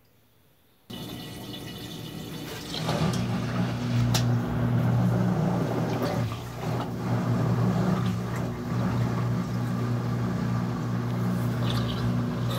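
Brastemp BWT12 top-loading washing machine starting its wash agitation about a second in: water sloshing and laundry churning in the tub. A steady motor hum joins about three seconds in.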